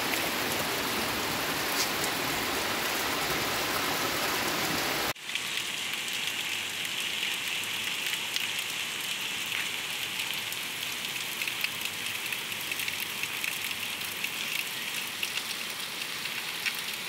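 Heavy rain, a steady full hiss with water streaming down. About five seconds in it cuts to a thinner, higher hiss of rain falling on a street running with water, dotted with small drop ticks.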